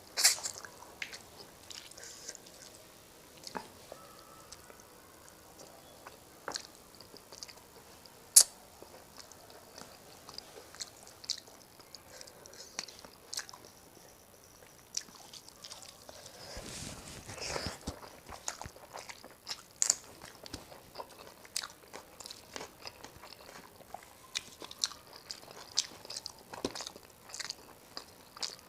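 Close-miked eating: chewing and biting of rice with fish curry and greens, with many sharp mouth clicks and smacks. A denser, noisier stretch of chewing comes about two-thirds of the way through.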